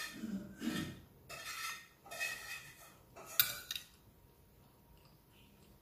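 Metal fork and spoon scraping and clinking on a china plate while food is gathered up, in about four short strokes over the first four seconds.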